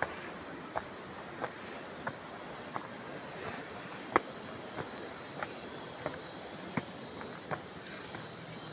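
Steady high-pitched drone of insects, crickets or cicadas, with footsteps at an even walking pace, about one every two-thirds of a second.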